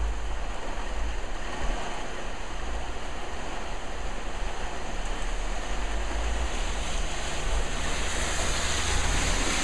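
Heavy rain falling on and around a bus shelter: a steady rushing hiss that swells brighter near the end, with wind rumbling on the microphone.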